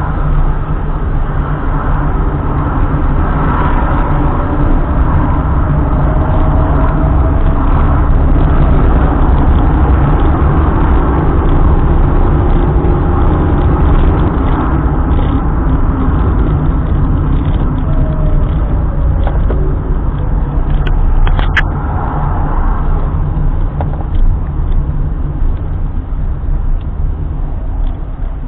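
A car on the move: steady low engine and road rumble with faint rising and falling tones. A single sharp click about three quarters of the way through.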